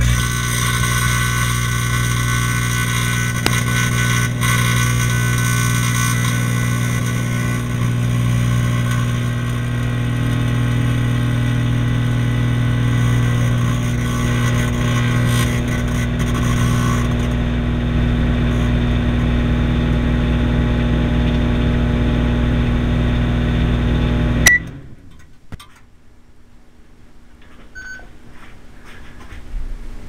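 1000-watt microwave oven running with light bulbs inside: a steady electrical hum with fan noise. About three-quarters of the way through it shuts off with a click, and a short beep follows a few seconds later.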